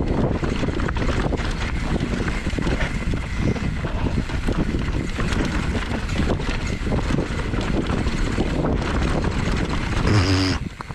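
Wind buffeting the microphone: a loud, steady rushing noise. Near the end a brief pitched sound cuts in, and then the rush drops away.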